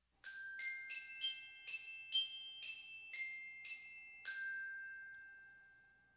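Music: a short melody of about ten bright, bell-like struck notes in quick succession, the last one ringing on and fading away.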